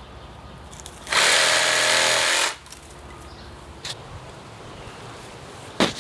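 A reciprocating saw fitted with a pruning blade runs briefly for about a second and a half, then stops.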